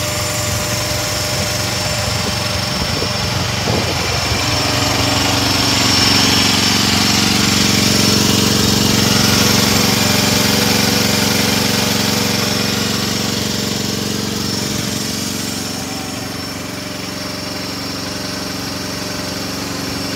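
AGT Industrial H12 mini excavator's small engine running steadily. Its tone shifts about four seconds in, and it is louder in the middle stretch, where the open engine compartment is close by.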